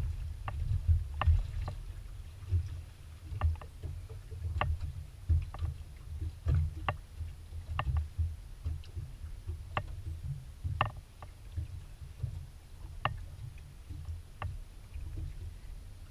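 Water slapping and lapping against a small aluminium boat's hull as it rocks in the chop: an uneven low rumble, with sharp irregular knocks and clicks about once a second.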